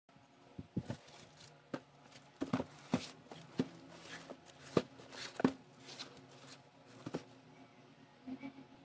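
Plastic courier mailer bag being handled: irregular crinkles, rustles and sharp taps as the parcel is moved and set down.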